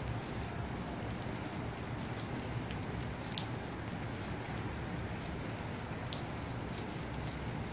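Steady rain falling, with a few faint drip ticks over a low steady rumble.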